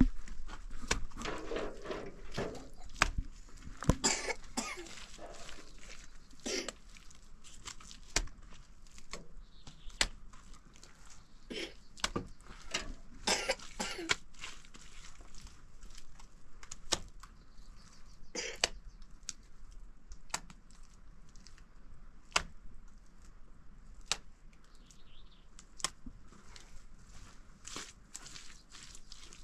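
Scattered irregular knocks and clicks, with a few short rough noisy bursts in the first few seconds and again about thirteen seconds in.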